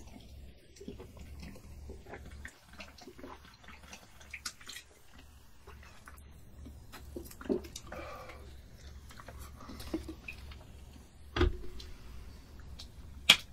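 A person gulping and swallowing from a liquor bottle and then a soda bottle, with small wet mouth and liquid sounds. A knock about eleven seconds in as a bottle is set down, and a sharp click just before the end.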